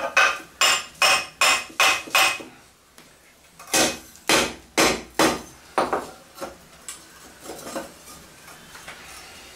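Hand hammer striking steel tongs on an anvil block, with ringing metal-on-metal blows. A quick run of about seven blows, a short pause, then about five more, trailing off into lighter taps.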